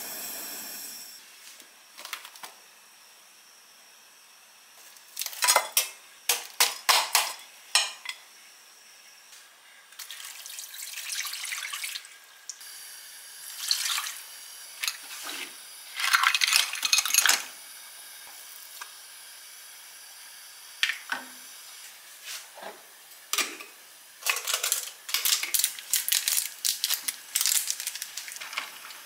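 Cooking sounds at a stove: clusters of clinks and knocks from utensils and dishes against a pan. About halfway through, water is poured into the pan for a second or two.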